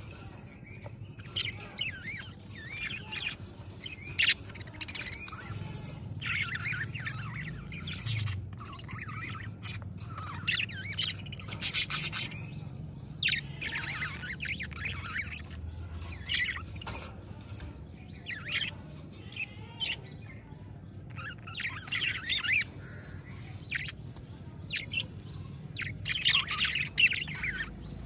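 A flock of budgerigars chirping and chattering: a continuous stream of short, overlapping chirps and warbles, with a few sharper, louder chirps.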